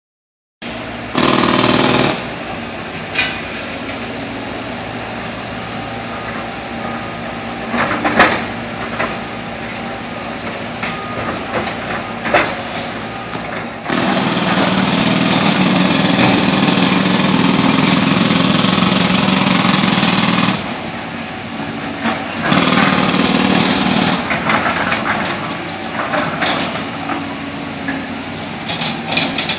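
Concrete breaker hammering at a demolition site, in several loud stretches. The longest runs about six seconds and the others are shorter. Between them is a lower steady machinery background with a few sharp knocks.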